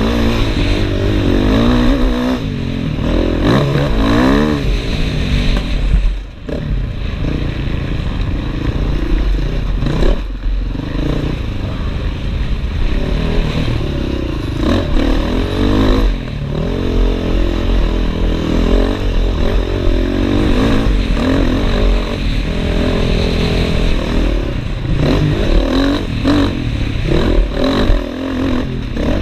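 Dirt bike engine revving up and easing off again and again as it is ridden hard over a rough dirt track, with a brief drop off the throttle about six seconds in.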